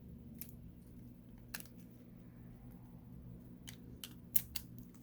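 Small sharp clicks and taps of phone parts being handled and pressed into place, most likely the internal bracket of an opened Samsung Galaxy Note 9 being fitted back over the battery; about six clicks, the loudest a little after four seconds in.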